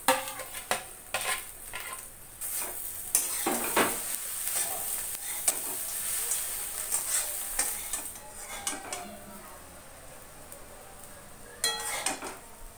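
A metal spatula stirs and scrapes through semolina pulao with scrambled egg in a metal wok over a gas flame, in repeated scraping strokes, while the food sizzles lightly. A sharp ringing clink comes near the end.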